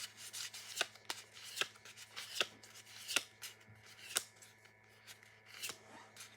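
Pokémon trading cards being slid and flicked one at a time through a freshly opened booster pack: a series of short, crisp card slides about every half second, with a pause of over a second after about four seconds.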